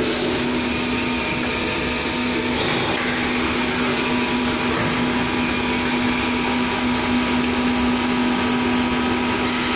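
Industrial vacuum fryer machinery running: a steady motor and pump hum with an even whir, unchanging throughout.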